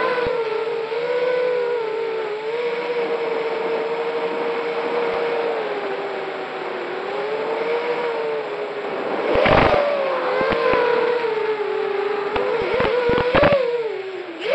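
Racing quadcopter drone's electric motors and propellers whining, the pitch rising and falling as the throttle changes. A few sharp knocks come about two-thirds of the way through and again near the end.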